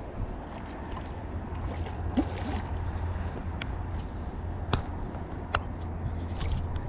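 River water sloshing and gurgling at the bank over a steady low rumble, with a few sharp clicks a little after the middle.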